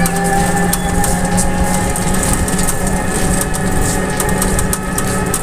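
A vehicle engine running steadily with a low hum, under constant rough road and wind noise.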